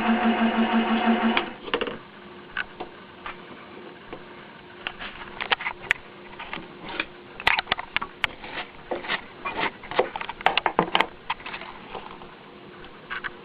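Milling machine running under a cut through a Delrin gear blank, a steady pulsing machine drone that stops about a second and a half in. Scattered clicks and knocks follow, busiest in the middle stretch.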